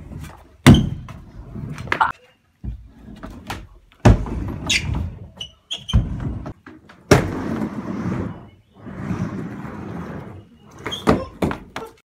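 Kick scooter riding on a half-pipe ramp: wheels rolling across the ramp surface, with a string of sharp thuds and clacks as the wheels and deck strike the ramp.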